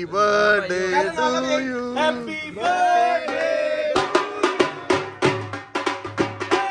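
Music starts abruptly: a sung melody with long, wavering held notes, then about four seconds in a quick, steady drum beat comes in under it.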